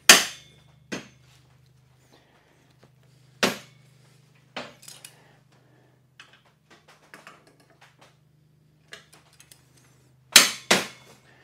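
Steel parts of a table saw stand clanking and clicking as a bolt and a big spacer are worked into a tight spot between two lifted brackets. A few sharp metal clanks, the loudest at the start and two near the end, with lighter clicks between.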